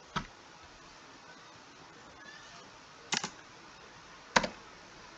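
Three short, sharp computer mouse clicks a few seconds apart, over a low steady hiss of room tone.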